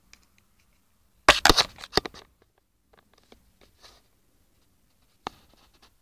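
Scratching, crackling rustle close to the microphone, loudest for about a second shortly after the start, then a few faint crackles and a single sharp click near the end.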